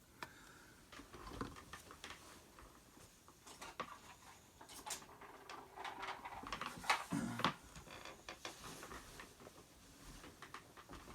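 Hands rummaging among small hard items to find a AAA battery: faint, irregular little clicks, taps and rustles.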